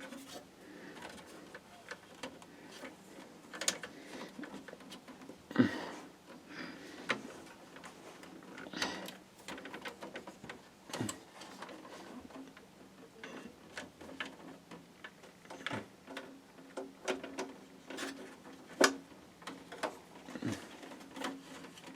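Irregular light clicks and knocks of cables and parts being handled and pushed about inside a PC case, with a few sharper knocks among them.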